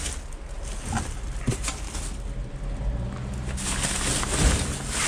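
Plastic trash bags and wrappers rustling and crinkling as a gloved hand sorts through a dumpster, with a few light clicks and louder rustling from about three and a half seconds in, over a steady low hum.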